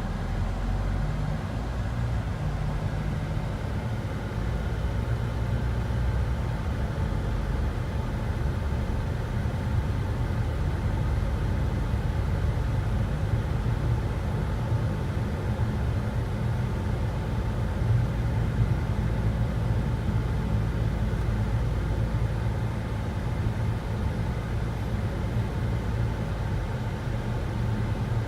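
Mitsubishi Delica D:5 running, heard from inside the cabin as a steady low rumble of engine and road noise.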